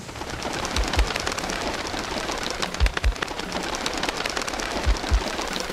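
A flock of feral pigeons taking off, their wings clattering in a dense, rapid flurry, with a few low thumps about every two seconds.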